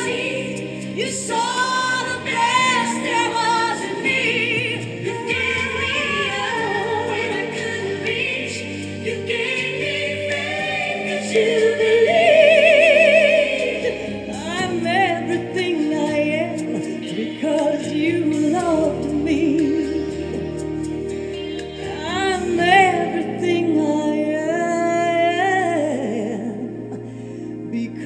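A woman singing a song with vibrato and long held notes over instrumental accompaniment.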